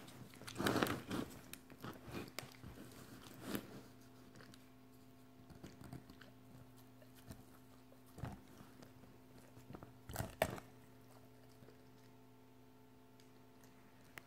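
An English setter gnawing and crunching on a large bone, with a dense run of cracking bites in the first few seconds, then a few scattered crunches about eight and ten seconds in.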